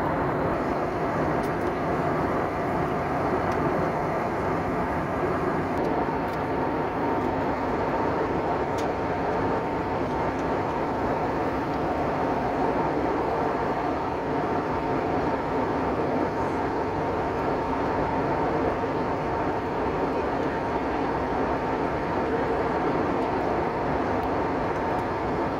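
Steady roar of an airliner's engines and airflow heard inside the passenger cabin in flight, even in level throughout, with a faint steady hum running through it.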